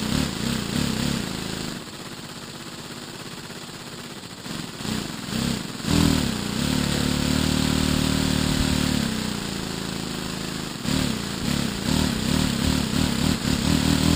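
Homemade laser-cut plexiglass V8 compressed-air engine with brass cylinders and aluminium pistons, running on shop air with a rapid chuffing of exhaust puffs and air hissing. Its pace drops about two seconds in, picks up loud and fast around six seconds, eases near nine, and speeds up again from about eleven seconds as the air is throttled.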